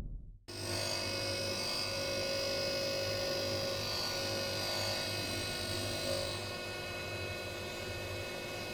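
Haas VF-6/40 vertical machining center running: a steady mechanical hum with a high whine, cutting in suddenly about half a second in, the whine easing off about six seconds in.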